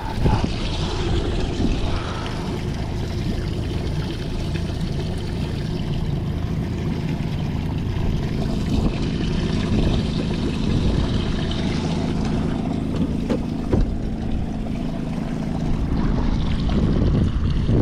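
Boat livewell pump running steadily with a low hum, water pouring and splashing into the well.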